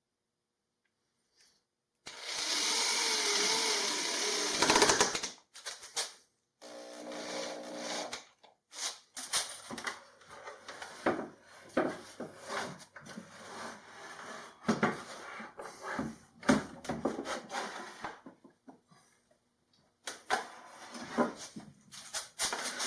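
A small power tool runs for about three seconds, then comes a long string of irregular knocks, clicks and scrapes as wood parts and tools are handled on a workbench.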